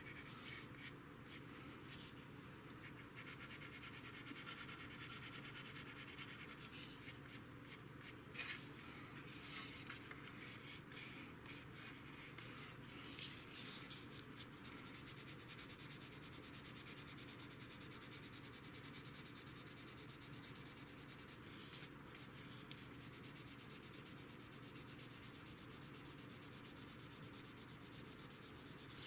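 Faint, rapid rubbing strokes of an abrasive over a painted plastic model-kit part, lightly sanding away a dark panel-line wash from the surface.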